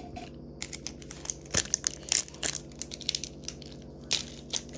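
Foil wrapper of a Pokémon Shining Fates booster pack crinkling and tearing as it is opened by hand, a rapid, irregular run of crackles starting about half a second in.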